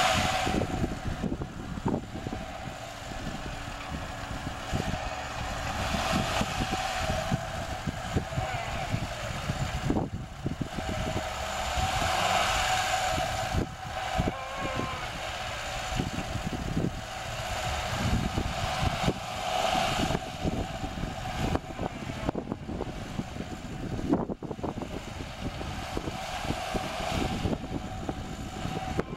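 Lada Niva engine revving in repeated swells, about every six or seven seconds, as the 4x4 struggles to push through deep mud, with uneven low knocks throughout.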